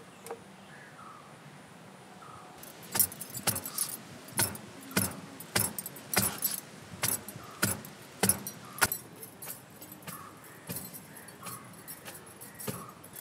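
A run of sharp, clinking knocks at a steady pace of a little under two a second, starting about three seconds in. They go on for about six seconds, then turn fainter and sparser.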